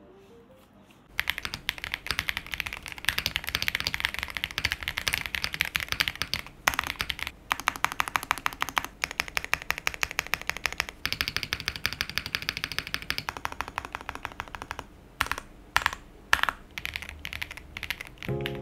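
Fast continuous typing on a QK65 R2 mechanical keyboard: gasket-mounted FR4 plate, Tecsee Aurora switches, lubed TX stabilisers, PBTFans keycaps, plate and case foam. It starts about a second in, with a few separate, louder keystrokes near the end.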